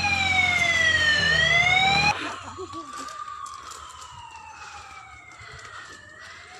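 Siren wailing slowly, its pitch sweeping down and then back up; loud at first, then suddenly fainter about two seconds in, where it keeps sweeping down and up.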